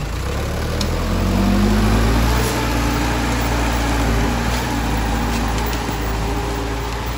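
LKT 81 Turbo skidder's diesel engine pulling under load as the machine drags a whole tree, roots and all, across the forest floor. The engine note rises about a second in, then holds steady.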